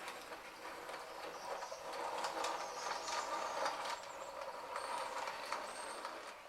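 Model train running on the layout: a steady mechanical running noise with scattered sharp clicks, and a couple of brief high squeaks about five seconds in.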